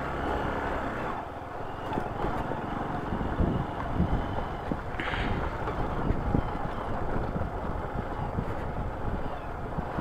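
Motorcycle riding slowly over a rough gravel and rock track: the engine runs low under the noise of the tyres on loose stones, broken by frequent short knocks and thuds as the wheels and suspension take the bumps.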